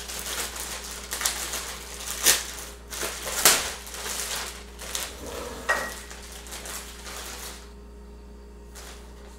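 Clear plastic packaging bag crinkling and rustling as it is pulled open by hand, with several sharper crackles. It dies down about two seconds before the end.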